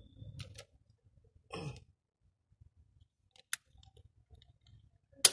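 Socket wrench on an extension bar snugging down a scooter's steel oil drain plug: a few isolated metallic clicks, with the sharpest and loudest click near the end, as the plug is brought tight. A short throaty sound comes about a second and a half in.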